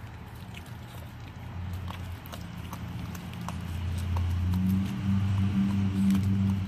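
Puppy gnawing on a frozen raw fish: scattered clicks and crunches of teeth on the frozen fish and its bones, as the slippery fish knocks and slides on the kennel floor. A low steady hum comes in and grows louder about halfway through.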